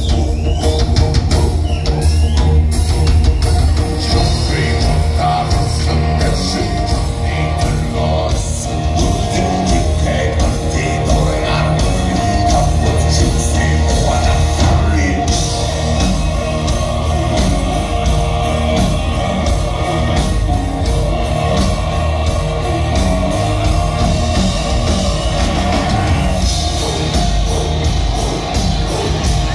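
Mongolian folk-metal band playing a song live, loud and heavy: drum kit, heavy bass and guitar, a horsehead fiddle, and sung vocals over the top.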